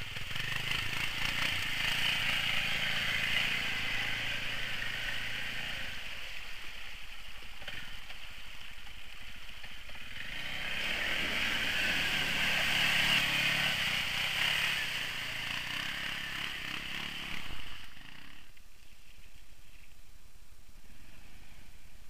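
Quad (ATV) engines revving hard as the quads plow through a deep, water-filled mud rut, with water and mud splashing. The revving surges twice, at the start and again about ten seconds in, then drops to quieter engine running near the end.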